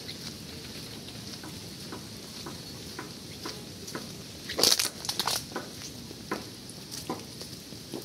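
Rain pattering on an umbrella overhead, with light taps about twice a second and a short cluster of louder knocks about halfway through.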